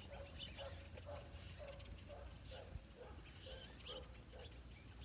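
Small birds chirping, faint, with scattered high chirps over a run of short, low calls repeated about twice a second.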